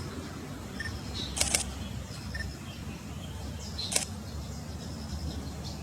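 White-eye (pleci) giving short, high, thin chirps, with three sharp clicks, two close together about a second and a half in and one near four seconds, over a low steady rumble.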